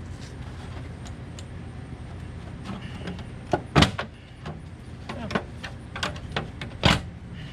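Plastic Aero wheel cover of a Tesla Model 3 being pulled off the wheel: a run of sharp clicks and knocks as its clips snap free, the two loudest about four seconds in and near the end, over a steady low hum.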